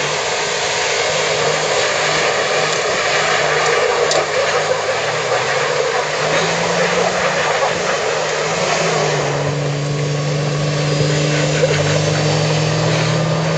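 Two pickup trucks, a Ford F-250 and a Nissan Navara, running their engines hard with wheels spinning in loose dirt, a steady mechanical note under a dense rushing noise of tyres and flung dirt. The engine note climbs briefly about six seconds in and holds a steady high note from about nine seconds.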